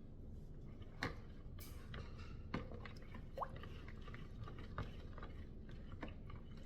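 Faint handling noises from soapmaking gear: a handful of light, separate clicks and knocks, with one brief squeak in the middle.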